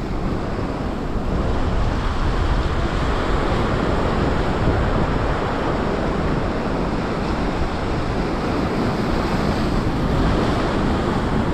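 Steady sea surf washing, mixed with wind rumbling on the microphone.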